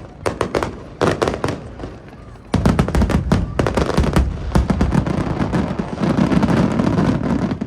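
Aerial fireworks going off: a few separate bangs at first, then from about two and a half seconds in a dense barrage of rapid bangs and crackling, which drops away near the end.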